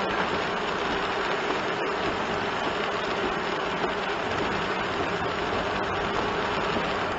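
Steady engine drone and tyre noise inside a kei van's cabin while driving on a wet road, with a couple of faint ticks.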